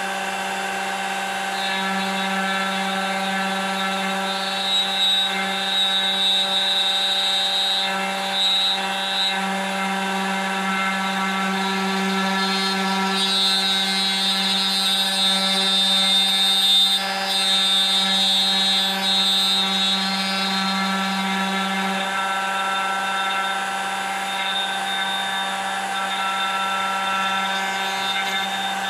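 Router spindle of a homemade manual copy-carving machine running steadily with a constant motor tone, its fine engraving bit cutting into wood. The cutting noise grows louder for a few seconds at a time, about five seconds in and again from about thirteen to twenty seconds, as the bit is guided along the pattern.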